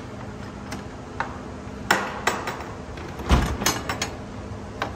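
Scattered knocks and clinks of hard objects being handled, about half a dozen. The loudest is a heavy thump a little over three seconds in. A faint steady hum runs underneath.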